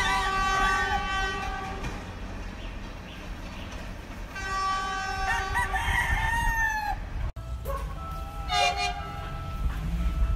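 Philippine National Railways train horn sounding two long blasts of about two to three seconds each, a few seconds apart, as the train pulls away, over a low rumble. A rooster crows over the blasts, and after a cut near the end a short horn-like note sounds.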